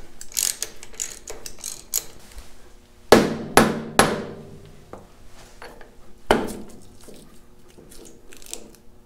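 Rubber mallet striking the cast hydraulic pump of a Farmall Super C to knock it loose from the engine, four sharp blows, three close together and one a couple of seconds later. Before them, light clicking of a wrench on the pump's mounting bolts.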